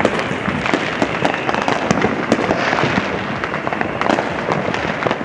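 Consumer fireworks and firecrackers going off all around at once: a dense, continuous crackle of many quick pops and bangs with no let-up.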